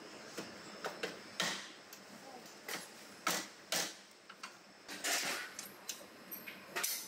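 Metal car-body parts being handled: irregular sharp clicks and clinks, with a couple of short scraping clatters, as steel brackets and a wiring harness on a crash-damaged front end are worked by hand.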